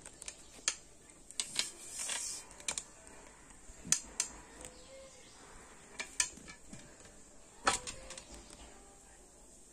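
Scattered light clicks and taps with a brief rustle about two seconds in, from a sheer fabric and sewing things being handled.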